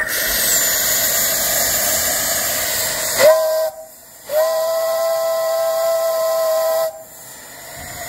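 Old three-chime steam whistle on a fire-tube boiler blowing: a strong rush of steam hiss first, then a short blast and a longer blast of about two and a half seconds, several tones sounding together as one chord, with steam hissing on after.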